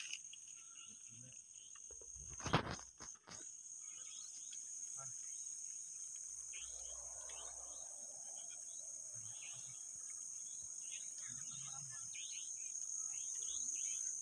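Night insects calling: a steady high-pitched trill with scattered short chirps over it, and a single knock about two and a half seconds in.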